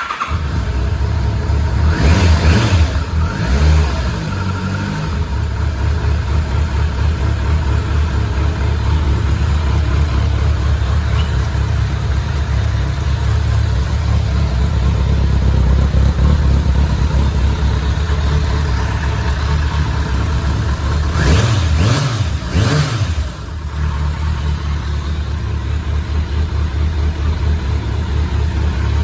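1999 Kawasaki ZRX1100's inline-four engine starting without choke and settling into a steady idle through its original silencer, with the throttle blipped twice: briefly a couple of seconds in and again near the end.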